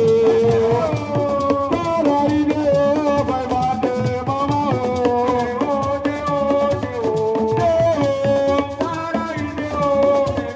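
Music: a sustained melody line with gliding notes over fast, dense percussion and a rattling shaker, in the style of Senegalese assiko.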